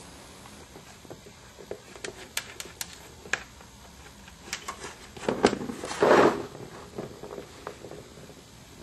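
A cat batting a plastic ball around the track of a round scratch-pad toy. Scattered light clicks and taps, with a louder burst of knocking and rattling about five to six and a half seconds in.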